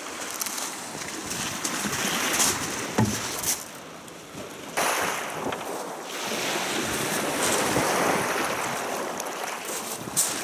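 Wind and choppy water splashing around a boat, with wind buffeting the microphone; the noise swells and drops in gusts and surges back suddenly about halfway through.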